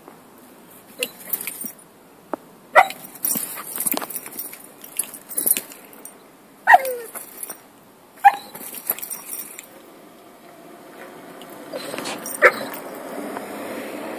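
Dogs meeting through a chain-link fence: a few short, high yips and barks, one of them sliding down in pitch like a whine, with scuffling noise between them.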